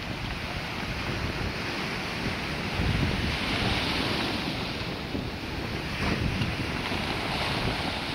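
Sea surf breaking and washing up over a cobble beach, surging louder about three seconds in and again near six seconds, with wind rumbling on the phone's microphone.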